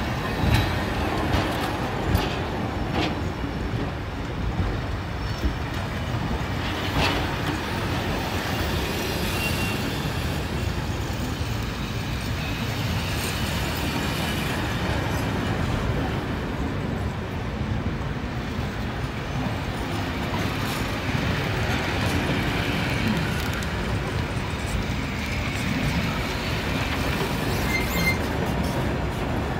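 Heritage passenger carriages rolling slowly past at close range: a steady rumble of wheels on rail, with sharp knocks as the wheels cross rail joints, several in the first few seconds and one about seven seconds in. Faint high squeals come in the later part.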